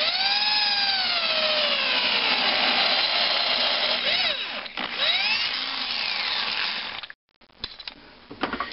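Power drill turning a reamer dry through the valve-guide bore of a cast-iron engine head. The motor's pitch rises and sags as the reamer cuts. It stops abruptly about seven seconds in, followed by a few light clicks.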